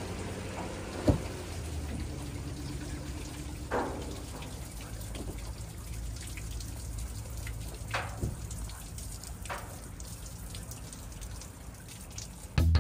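A steady low hum with a faint background hiss, broken by a few sharp knocks or clicks, about four in all.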